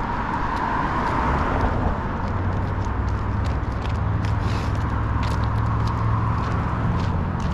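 A motor vehicle's engine running steadily, a low hum that sets in about two seconds in.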